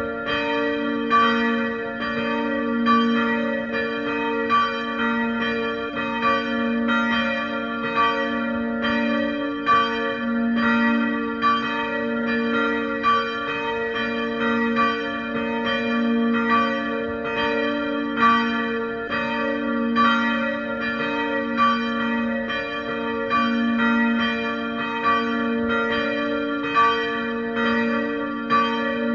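Two church bells swinging and ringing together, their strikes overlapping in a steady, continuous peal.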